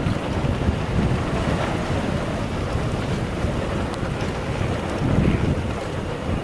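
Wind rushing over the microphone of a mountain bike on a downhill descent: a steady low rumble with no tone.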